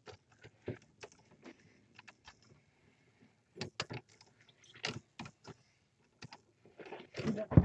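Scattered light clicks and knocks at irregular intervals, with a louder cluster of knocks near the end.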